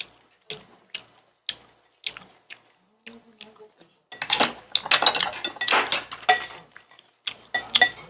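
Tableware being handled at a meal: single sharp clicks of utensils against dishes about every half second, then a busier stretch of clattering and rustling about four seconds in, then a few more clicks.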